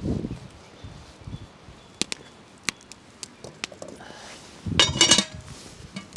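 Cooking utensils and cookware being handled: a few sharp separate taps, then a brief clinking clatter with a ringing note about five seconds in.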